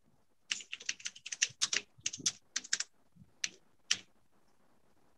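Typing on a computer keyboard: a quick run of keystrokes for about two and a half seconds, then two single key presses, stopping about four seconds in.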